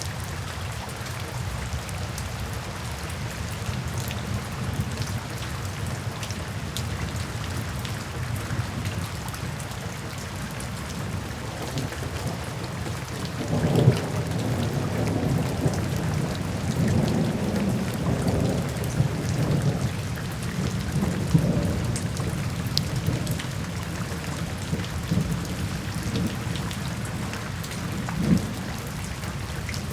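Steady rain with a low rumble of thunder rolling in about halfway through and fading over several seconds, with another short rumble near the end.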